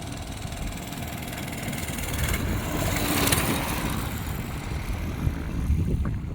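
Motorized fat bike's small petrol engine running during a ride, under a broad rushing noise that swells and fades about three seconds in.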